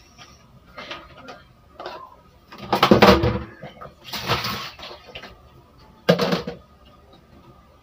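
Kitchen items knocked and clattering on a counter in a few separate bursts, the loudest about three seconds in, with small clicks between.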